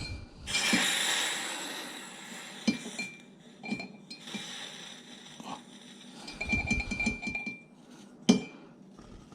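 A hiss that fades over about a second and a half, then scattered light metallic clinks and taps as a freshly soldered metal piece and tools are handled on a jeweler's bench, with one sharper knock near the end.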